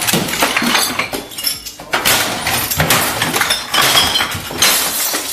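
Repeated crashing and breaking glass as objects are smashed around a room, a steady run of clattering impacts.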